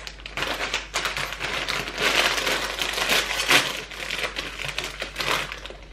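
A plastic Cheetos Crunchy snack bag crinkling and crackling as it is handled and pulled open, in a dense run of quick crackles that is loudest in the middle.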